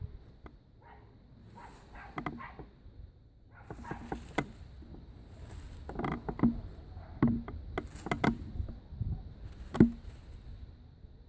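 A cat scratching and playing in grass: irregular rustling and scratching with many sharp clicks and taps, busier in the second half.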